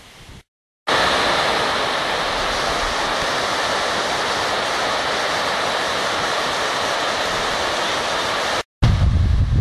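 Water overflowing the arched spillway of a full reservoir dam, pouring down the masonry face in a steady, loud rushing. It follows a brief silent break about a second in. Near the end the rushing breaks off and a low rumble takes over.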